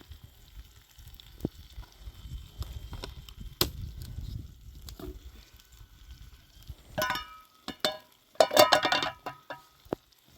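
Metal objects clinking and clanking with a ringing tone, in two bursts in the second half, the second longer and louder, over a low rumble of handling noise.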